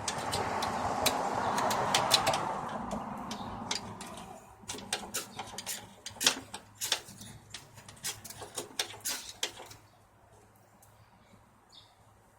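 Fatwood kindling catching fire from ferro rod sparks: a loud rushing hiss for the first few seconds, then a run of sharp crackles and pops that thin out and die away about ten seconds in.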